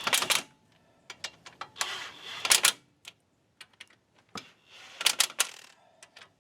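Hand ratchet clicking in short runs of rapid clicks as bolts are run into cast iron a little at a time, with scattered single clicks between the runs.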